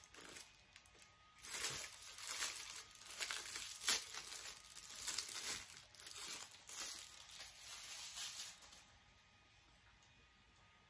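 Packaging wrap being torn and crumpled by hand as an item is unwrapped, in repeated rustling bursts with one sharp crackle about four seconds in. It stops about two seconds before the end.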